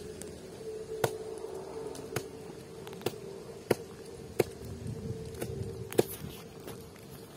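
Sharp, irregular knocks, about one a second, over a steady low hum.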